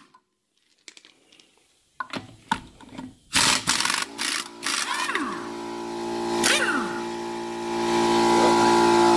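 Air impact wrench hammering in several short bursts about two to four and a half seconds in, loosening lug nuts on a car wheel. A steady machine hum then starts and grows louder near the end: the air compressor that drives the wrench, running.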